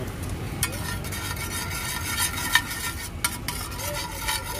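Egg frying in oil on a large flat iron griddle (tawa), sizzling while a metal spatula stirs and scrapes it, with a few sharp clinks of the spatula on the pan. The sizzle grows louder about half a second in as the spatula starts working.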